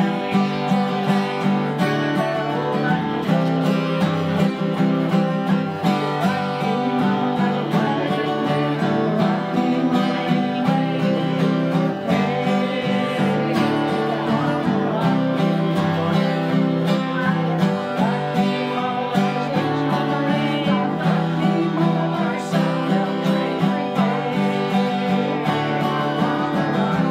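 Acoustic guitar music in a country and bluegrass style, playing steadily.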